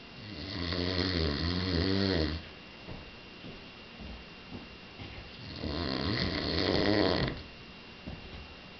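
A man snoring loudly: two long snores about four seconds apart, each lasting about two seconds.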